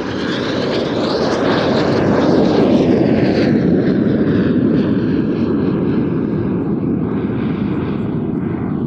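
Soko G-2 Galeb jet trainers of a display team flying past, their Rolls-Royce Viper turbojets giving a loud jet roar. The roar builds to its loudest about two to three seconds in, then fades as the pitch falls away.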